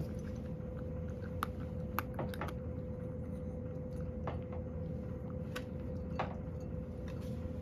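A cat eating dry kibble from a bowl, with a handful of separate crisp crunches spread over the seconds, over a steady low background hum.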